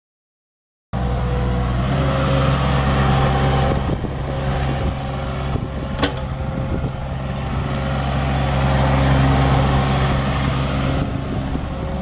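Diesel engine of a 2000 Kubota KX61-2 mini excavator running steadily under load as its boom and bucket are worked, starting abruptly about a second in. A single sharp click sounds about halfway through.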